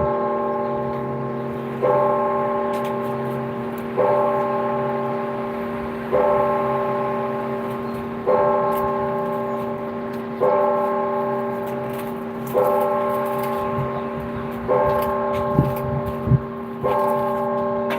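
Church bell tolling slowly and steadily, struck about once every two seconds, each stroke ringing on and overlapping the next. A couple of sharp knocks sound near the end.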